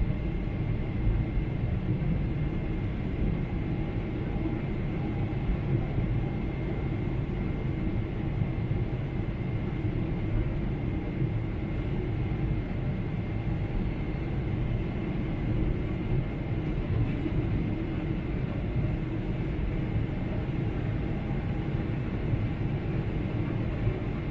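Steady cabin noise of a jet airliner: a constant low rumble of engines and airflow, with a faint steady high tone above it.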